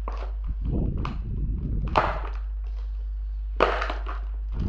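Thin vacuum-formed plastic packaging tray and its bagged accessories being handled, rustling and creaking, with two sharp crackles of plastic, about two seconds in and again past three and a half seconds. A low steady hum runs underneath.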